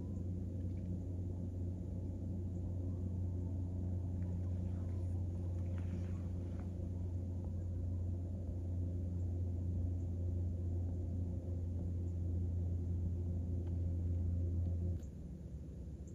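A steady low mechanical drone with a few fainter higher overtones, which cuts off suddenly about fifteen seconds in.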